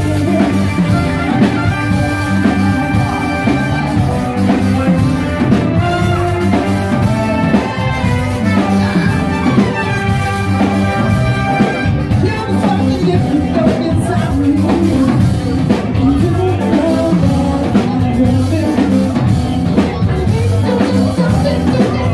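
Live cover band with a horn section playing an upbeat dance song: drum kit, electric guitar and held horn notes, recorded loud on a cell phone from the dance floor.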